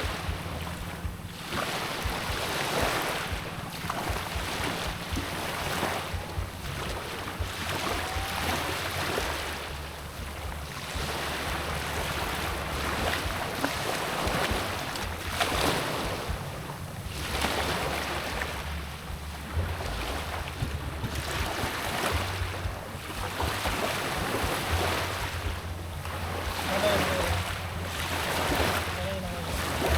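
Sea waves washing and surging in repeated swells, with wind rumbling on the microphone.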